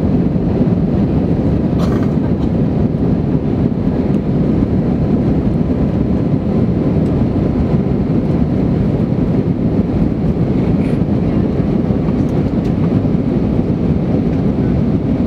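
Steady roar of an Airbus A320's engines and rushing air, heard inside the passenger cabin during climb-out after takeoff.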